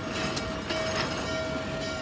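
Norfolk & Western J Class 611 steam locomotive and its tender rolling past, a steady mechanical din with a faint steady tone and a couple of sharp clicks within the first second.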